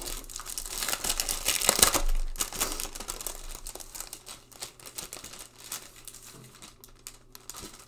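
Clear plastic wrapper crinkling as it is pulled off and handled around a paper pocket folder, loudest about one to two seconds in, then thinning to scattered light rustles.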